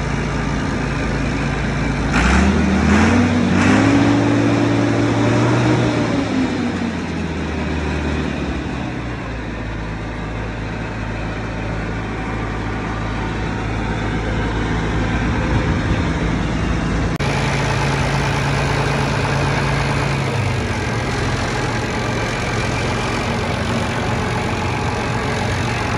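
Massey Ferguson 850 combine's Perkins diesel engine running smoothly after years of sitting. About two seconds in it is revved up, held for a few seconds, then let back down to a steady idle.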